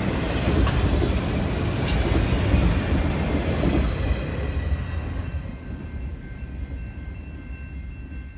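Autorack freight cars rolling past, their steel wheels rumbling on the rails. The last car goes by about four seconds in, and the rumble then fades as the train moves away.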